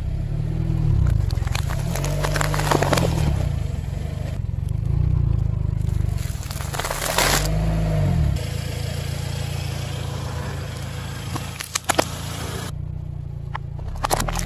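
Car tyre rolling onto and crushing items on asphalt: several bursts of crackling and crunching as cartons, food and plastic give way. Beneath them runs the car's low engine rumble.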